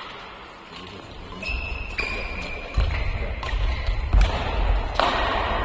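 Badminton rally: a quick run of sharp racket strikes on the shuttlecock, about one every half second to second, starting about a second and a half in, over thudding footwork on the court floor.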